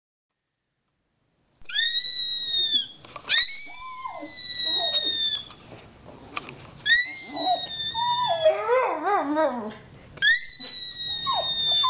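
A high-pitched steady electronic-sounding tone sounds four times, each lasting about a second or more. Between the tones a dachshund barks and howls at it, with one long wavering howl that falls in pitch near the middle.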